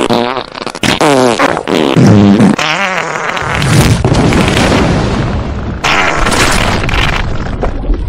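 A huge comic fart: wobbling, pitched blasts for about the first two and a half seconds, then a long, loud rush of noise with a deep low rumble that runs on past the end.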